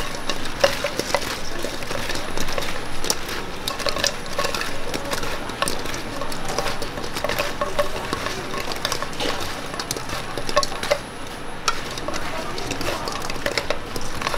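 Metal cookware and utensils clattering and scraping, with many quick irregular clinks and knocks.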